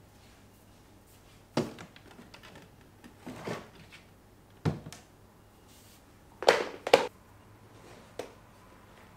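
Knocks and thuds of a tip-out shoe cabinet being handled and a pair of sneakers set down on a tiled floor: about five separate knocks, the loudest a quick pair about two-thirds of the way through.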